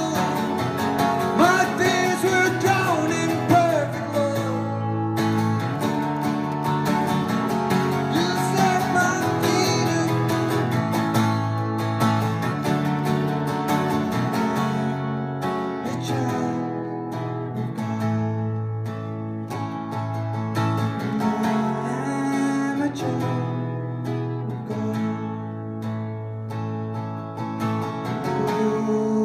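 Acoustic guitar strummed in steady chords, with a man singing over it, mostly in the first ten seconds or so.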